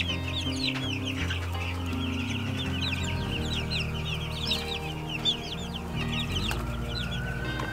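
Young chicks peeping constantly, many short, high, falling peeps overlapping one another.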